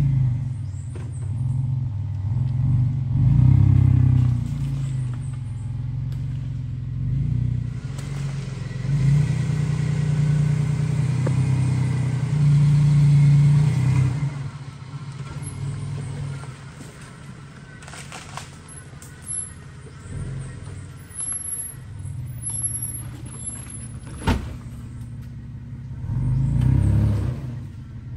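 Second-generation Mitsubishi Montero's engine running and revving up in several surges, easing back between them. A single sharp knock about three-quarters of the way through.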